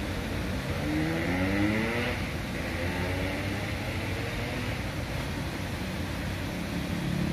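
A motor vehicle's engine accelerating: its pitch rises over about two seconds starting about a second in, then levels off and fades, over a steady background hiss.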